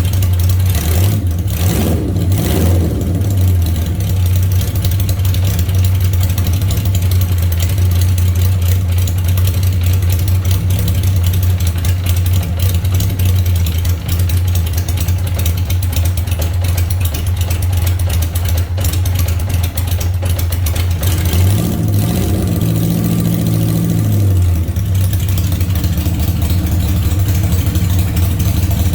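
Engine idling steadily just after a hard start. About three quarters of the way in it is revved briefly, rising in pitch, then drops back to idle.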